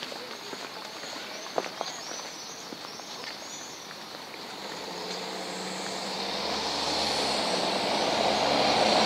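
Street traffic on a cobbled square: a motor vehicle approaching, its engine hum and tyre noise swelling steadily over the last few seconds. Before that come light footsteps and a few short high chirps.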